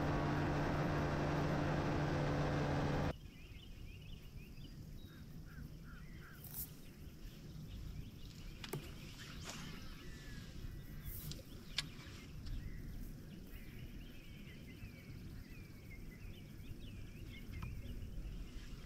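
Bass boat's outboard motor running at speed, a steady hum with wind noise, cut off abruptly about three seconds in. After that come faint bird chirps and a few light clicks and knocks.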